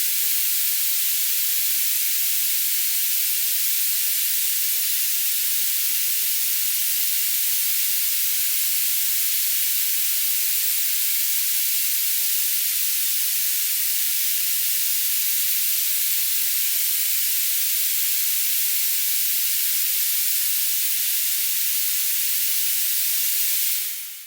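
Tinnitus-masking noise: a steady, even, high-pitched hiss with no low rumble, fading out near the end.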